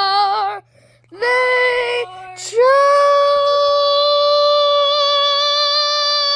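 A high voice singing the close of a song. A short wavering phrase is followed by a brief break and another note, then a final note held long and steady.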